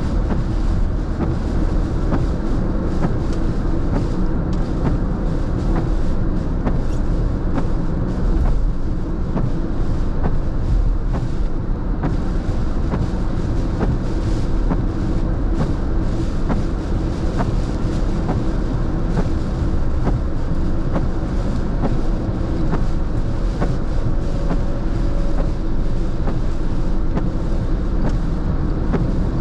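Steady road noise heard from inside a car on a rain-soaked freeway, with tyres running on wet pavement. Scattered ticks of raindrops hit the windshield, and the wipers sweep across the glass.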